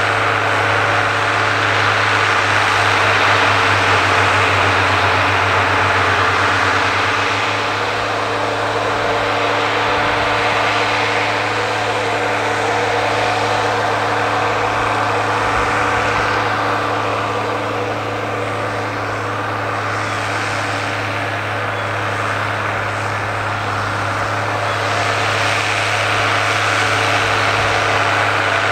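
Ford 9700 tractor's 6.6-litre (401 cu in) six-cylinder diesel engine running steadily under load while pulling a five-bottom moldboard plow through the soil. Its sound eases a little through the middle and builds again near the end.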